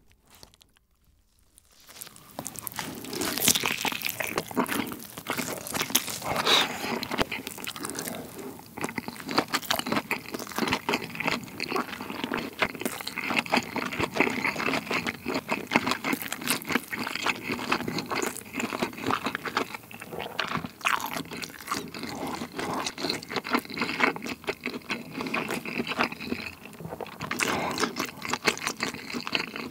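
Close-miked biting and chewing of cheese pizza folded around a sausage, with dense small mouth clicks. It starts about two seconds in after a brief silence.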